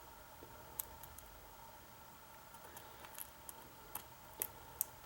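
Hook pick working the pin stacks inside a Master Lock 6230 padlock under light tension: scattered small metallic clicks and ticks, more frequent in the second half, over a faint steady hum.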